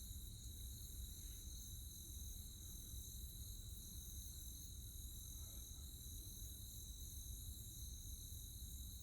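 Night insect chorus of crickets: a steady high-pitched trilling in several constant bands, with a steady low rumble underneath.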